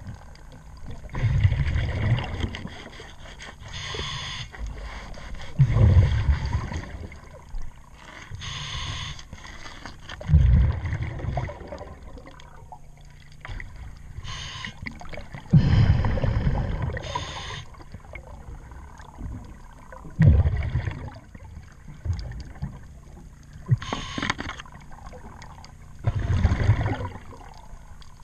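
Scuba diver breathing underwater through a regulator: a short hiss on each inhale, then a loud bubbling rumble of exhaled air, repeating about every four to five seconds.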